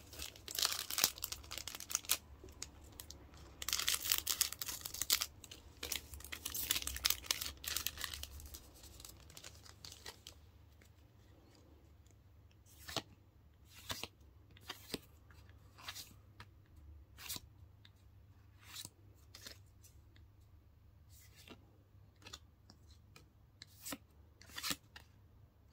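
A foil Pokémon VSTAR booster pack being torn open and its wrapper crinkled for about ten seconds. After that come short, separate swishes about once a second as the cards are slid one by one off the stack.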